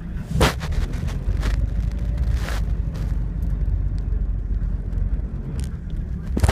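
Van engine running with a steady low rumble, heard from inside the cab. Several short knocks and rustles cut across it, the sharpest near the end.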